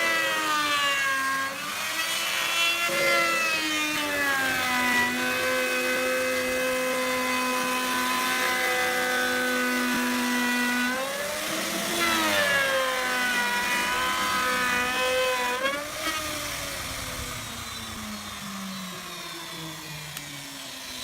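Electric power tool motor running while cutting wood, its whine dipping in pitch and recovering several times as it takes load, then sliding lower near the end.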